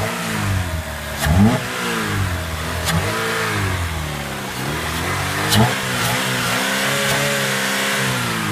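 GM 2.2 L L61 Ecotec inline-four, run with its air intake removed, revved in a series of quick blips that rise and fall, then held at higher revs for a couple of seconds near the end.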